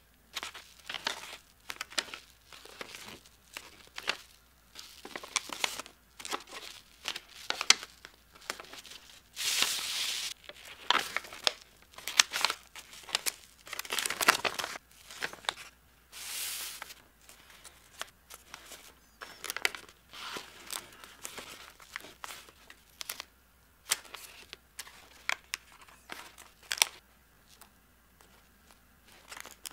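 A sheet of origami paper being folded by hand: it rustles and crinkles as it is handled, with many short sharp crackles as creases are pressed. A few longer swishes come about ten, fourteen and sixteen seconds in.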